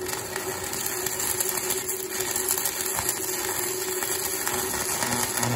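Electric arc welding on steel: the arc gives a steady, loud crackling hiss with spatter, then cuts off suddenly at the end.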